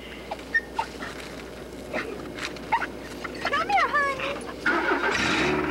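Small dog whimpering in a few quick high notes that bend up and down, about three and a half seconds in, among scattered light clicks.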